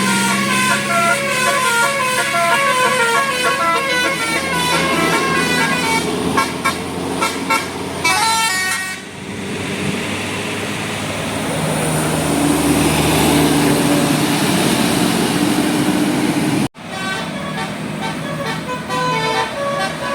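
Bus 'telolet Basuri' multi-tone musical horn playing a quick melody of stepped notes for several seconds. The horn stops about halfway through, leaving bus engine and road noise, and after an abrupt break near the end the horn melody starts again.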